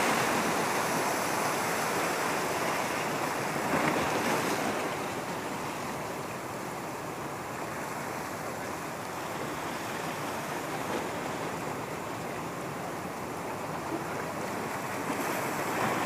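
Waves and choppy water washing against a rock breakwater, with wind buffeting the microphone. The noise is louder for the first few seconds, then softer and steady.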